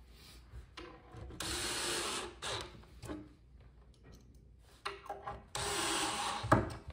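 Cordless drill driving screws all the way into the panels of a flat-pack shelf unit, in two runs of about a second each, the second ending in a sharp knock, the loudest moment.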